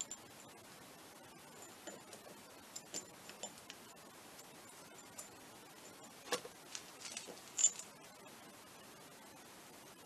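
Light metal clicks and taps, scattered and irregular, as a three-screw flywheel puller and its screws are handled and threaded onto the ignition flywheel of a Minarelli vertical moped engine. The loudest clicks come about six and seven and a half seconds in.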